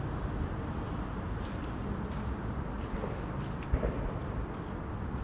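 Outdoor ambience: a steady low rumble with faint, brief bird chirps above it, and a single soft knock nearly four seconds in.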